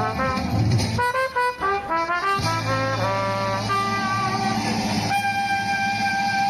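Solo trumpet playing a melody: a run of short, quickly changing notes, then one long held note from about five seconds in, over a steady low rumble.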